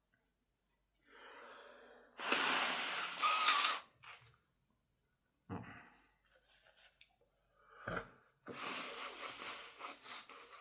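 A man breathing hard through his nose while trying to bring on a sneeze: two long, loud breaths, the first ending in a brief whistle, with a few short sharp noises between them.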